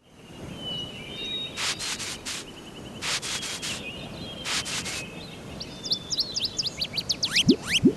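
Outdoor nature ambience with birds calling. Three short bursts of rapid pulsing come in the first half, then a fast run of quick sliding chirps builds and grows louder from about halfway on.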